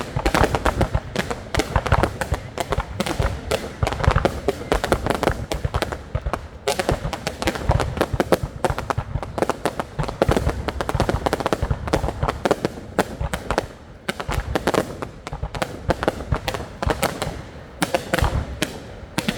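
Fireworks going off in a dense, continuous barrage, many sharp bangs and crackles overlapping with hardly a gap.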